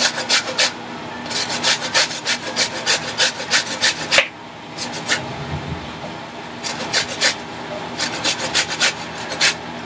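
A lemon being zested on a metal grater: quick, light rasping strokes of the peel across the grater's teeth, in runs of several strokes, with a pause about halfway through.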